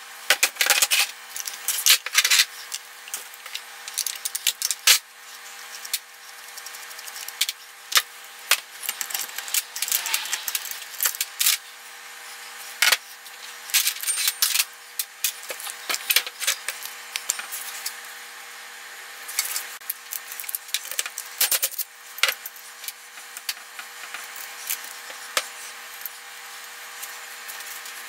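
Sped-up sound of hand work on a plastic-bodied chainsaw: frequent sharp clicks, knocks and scrapes of parts and tools handled on a wooden bench as covers, bar and chain come off. A faint steady hum runs underneath.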